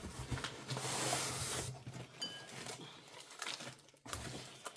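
Paper and packaging rustling as items are handled and lifted out of a box, with a few small clicks and knocks. The rustle is loudest for the first second or two.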